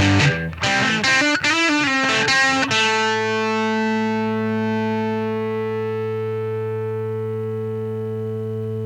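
Electric guitar through a Caline CP-12 Pure Sky overdrive pedal into a Vox AC15 amp, lightly overdriven. A chord is cut short, a quick run of notes follows, and then a final chord is left ringing and slowly fading.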